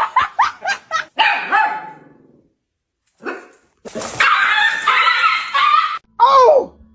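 A dog barking: a quick run of short barks in the first second and a half, then after a pause a longer run of calls, and one loud bark near the end.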